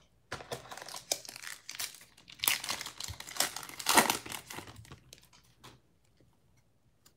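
Foil wrapper of a Panini Prizm basketball card pack being torn open and crinkled by hand, a run of crackling rips for about five and a half seconds, loudest about two and a half and four seconds in.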